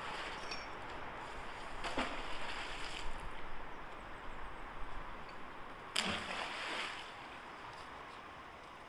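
Fishing magnet thrown out on its rope and splashing into the canal, twice, about two and six seconds in, over a steady outdoor hiss.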